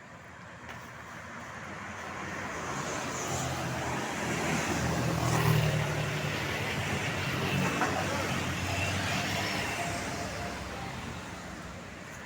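A road vehicle passing by: engine and tyre noise swell to a peak about five seconds in, then fade away.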